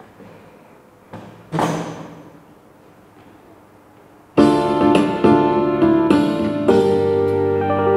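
Portable electronic keyboard starting a demonstration piece about four and a half seconds in: a melody in D minor over chords with a steady rhythm accompaniment. Before it, a single short knock about a second and a half in.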